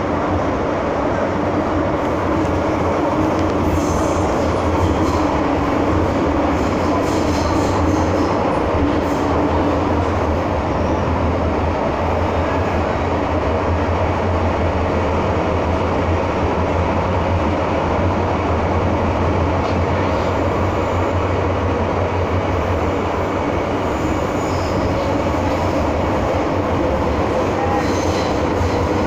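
MTR M-Train electric multiple unit running at speed, heard from inside the passenger car: a steady loud rumble of wheels and motors with a low hum. Faint high wheel squeals come a few seconds in and again near the end.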